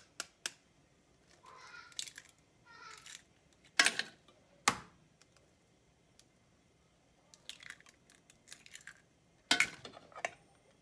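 Eggs knocked against the rim of a bowl and cracked open: two sharp knocks a little under a second apart midway, then a run of small clicks and taps near the end.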